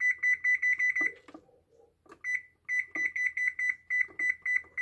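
Maytag oven control panel beeping in quick runs of short, high beeps, about five a second, each beep one step of the timer counting up as the plus button is pressed to set it to 30 minutes. There is a short pause between a first brief run and a longer second run.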